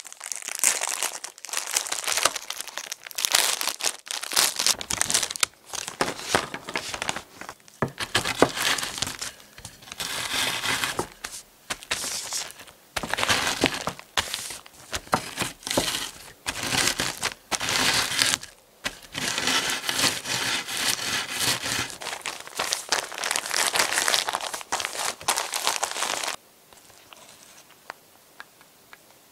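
Oreo cookies being crushed to crumbs inside a zip-top plastic bag: the bag crinkles and crackles in irregular bursts, with the cookies crunching. Near the end it stops and goes much quieter.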